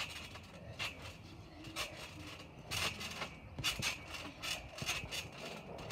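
A trampoline being bounced on: short, irregular strokes as the mat is hit and the steel springs creak and rasp with each bounce.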